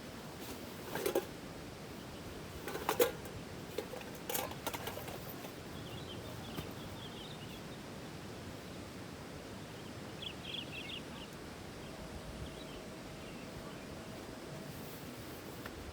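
Outdoor background hiss, broken by a few short knocks in the first five seconds and by faint, brief high chirps in two short clusters later on.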